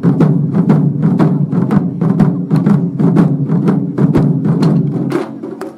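Japanese taiko drums played in an ensemble: rapid, loud strikes one after another over a deep ringing body, stopping about five seconds in.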